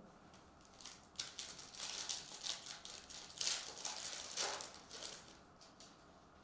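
Foil trading-card pack wrapper being torn open and crinkled by hand: a run of rustling crackles that fades out about five seconds in.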